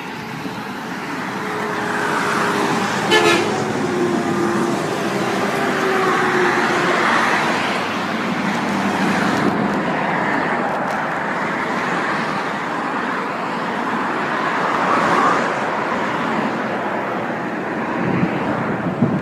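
Road traffic passing steadily, with a short truck horn blast about three seconds in.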